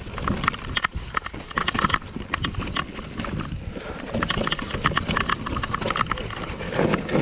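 Mountain bike riding down a rough, leaf-covered dirt trail: quick, irregular clicking and clattering from the bike over bumps, over a steady rumble of tyres on the ground.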